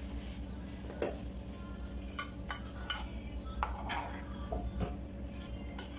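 A metal ladle stirring sweetened tea in a metal saucepan on a gas burner, with scattered light clinks of the ladle against the pan over a steady low background of the pot heating. The tea is just coming to the boil.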